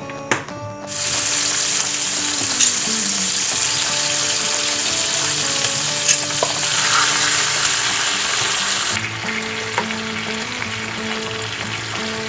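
Raw chicken pieces frying in hot oil in a pan: a steady sizzle that starts suddenly about a second in, with a few sharp clicks, easing a little near the end.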